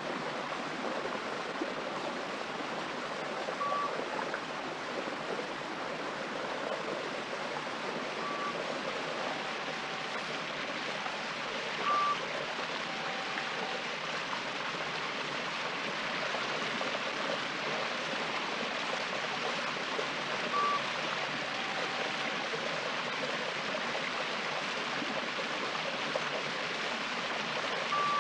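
Stream water running and splashing over small stone ledges and falls, a steady rushing. Several times a short, steady high note sounds, each followed a second or so later by a slightly lower one.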